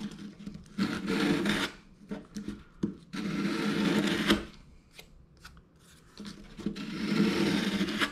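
A small piece of light wood being sanded by hand on a loose round orbital-sander sandpaper disc. There are three rubbing passages of about one to one and a half seconds each, with small taps and knocks between them.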